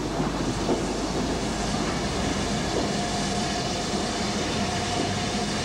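Metre-gauge steam tank locomotive on the move, a steady noisy rumble of steam and running gear with no distinct beat. A faint steady high tone comes in about halfway through.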